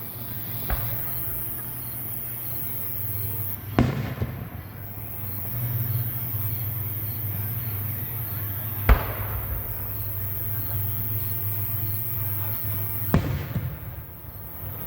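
Fireworks bursting overhead: a sharp bang about four seconds in, a louder one about nine seconds in and another near thirteen seconds, with a faint pop near the start. A steady low hum runs underneath.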